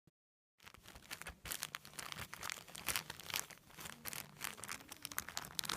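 Home-made slime being squished and stretched by hand: a dense run of crackling, popping clicks that starts about half a second in.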